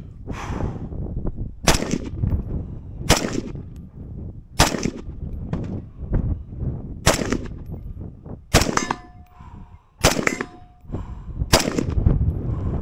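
5.56 AR-style rifle fired seven times, about one shot every second and a half. After two of the shots near the end, a steel target rings with a short steady tone. Wind rumbles on the microphone throughout.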